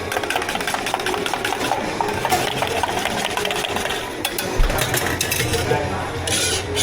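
Drink-making at a tea-shop counter: fast clattering for about four seconds, then a low steady machine hum with a thud and a short hiss near the end.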